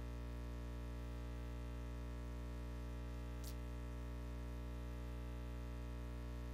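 Steady low electrical hum with a ladder of buzzing overtones, unchanging throughout, with a single short click about three and a half seconds in.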